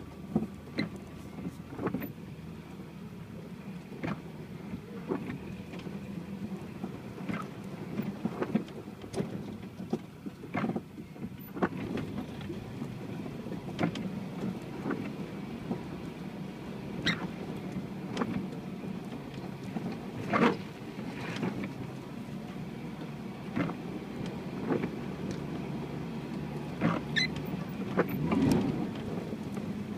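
UAZ Patriot off-road vehicle driving over rough ground: a steady engine hum with irregular knocks and rattles throughout.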